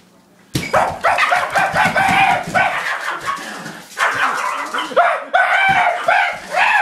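Yorkshire terrier breaking into rapid, high-pitched barking and yapping that starts suddenly about half a second in and keeps going, loud and excited, as it is startled in play.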